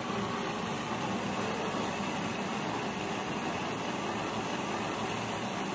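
Steady hiss of a SuperGold 2000 mini thermal fogging machine's gas burner, running while its coil glows red during the warm-up before fogging.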